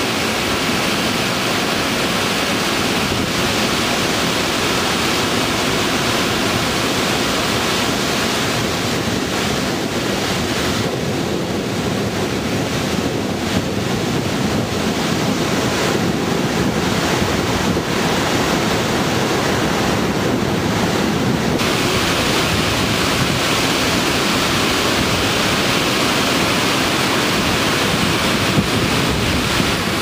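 Steady rush of a large waterfall and the whitewater river feeding it, heard close up, with wind buffeting the microphone.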